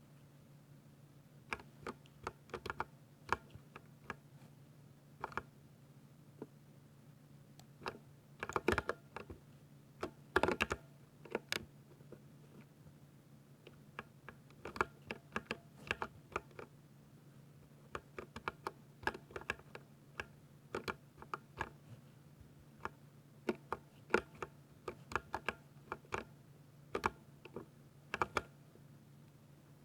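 Typing on a mechanical keyboard: keystrokes clack in irregular runs with short pauses, with a denser, louder flurry about a third of the way in. A faint steady low hum runs underneath.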